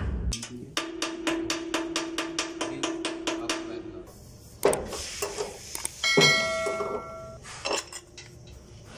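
Metal tapping and knocking on the threaded heating-element fitting of a steam sterilizer chamber as it is worked loose with a pipe wrench: rapid, even taps for the first few seconds, then scattered clanks and a short metallic ring.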